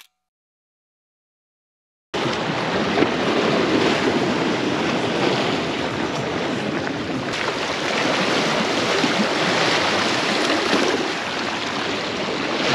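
Dead silence for about two seconds, then steady surf washing against jetty rocks, with wind on the microphone.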